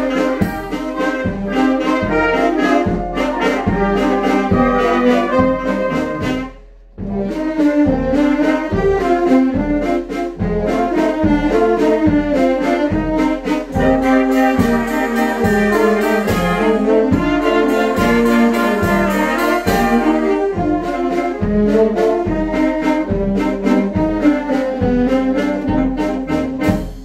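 Children's brass band playing over a regular low beat. The music breaks off briefly about six or seven seconds in, resumes, and dies away at the very end.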